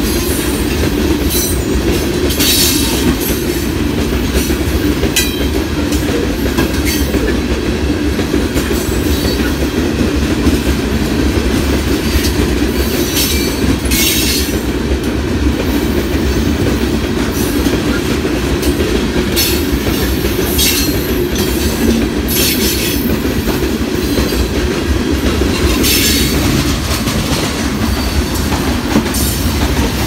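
Freight cars of a limestone train rolling past close by: a steady low rumble of steel wheels on rail, broken several times by short, high-pitched wheel squeals.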